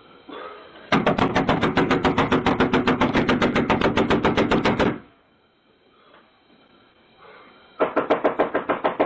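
Loud, rapid knocking on a front door, about seven knocks a second, in two long bouts: one of about four seconds starting a second in, and another starting near the end. Urgent knocking to rouse occupants who are not answering, to warn them of a fire.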